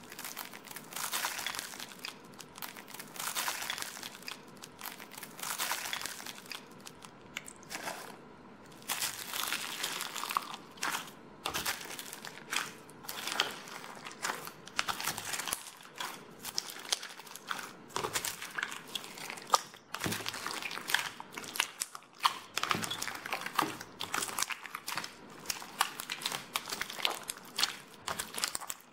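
Hands crunching and crackling the dried crust of a water jiggly 'iceberg' slime, a crust formed by tiny foam beads that rose to the surface. Slow pressing crunches come first. From about nine seconds in, a dense run of sharp crackles and pops follows as the crust breaks and the wet slime underneath is squeezed.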